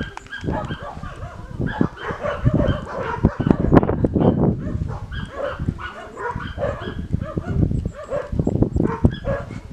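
Puppies barking, many short barks in quick succession, over a low rumbling noise.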